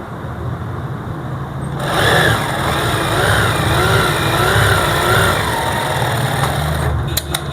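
Sewing machine, its shuttle and needle timing freshly set, running steadily and stitching a seam, starting about two seconds in. It stops near the end with a few sharp clicks.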